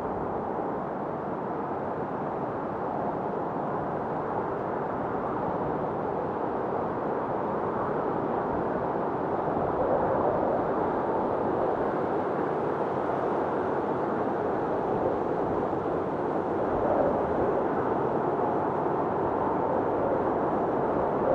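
Wind storm blowing steadily: a dense rush of wind with a faint wavering whistle, swelling slightly in gusts about halfway through and again later on.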